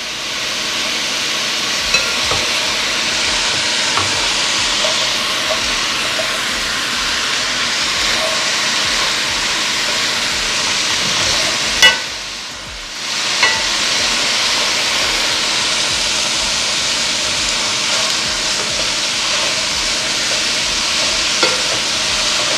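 Shredded cabbage, carrot and peppers sizzling in hot oil in a metal pot as they are tossed with tongs, the steady sizzle broken by a few sharp clicks of the tongs against the pot. Halfway through, the loudest click comes and the sizzle drops away briefly before picking up again.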